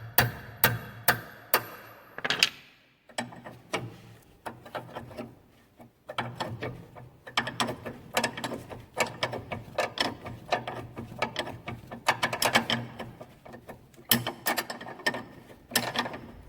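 About five sharp strikes on the tool to crack the tight nut of a Mazda RX8's anti-roll bar drop link. From about three seconds in, a ratchet spanner clicks rapidly as the nut is wound off.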